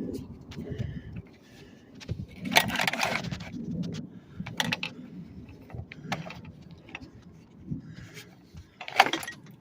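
Scraping and rustling as a car's seatbelt assembly is worked free by hand, with several sharp clinks of metal hardware. The longest scrape comes about a third of the way in, and the loudest clink comes near the end.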